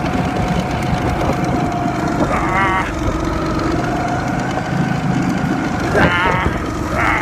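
Go-kart engine running steadily under way, with a faint steady whine over its rumble and wind on the microphone. Three short, high, wavering squeals cut through, about two, six and seven seconds in.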